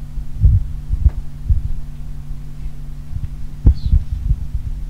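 Steady electrical hum from a sound system, with irregular low thumps and bumps from a handheld microphone being handled.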